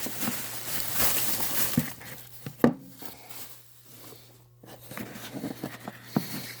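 Packaging handled by hand: about two seconds of rustling, then one sharp knock and a scatter of light taps and clicks as the lighter's small cardboard box is handled.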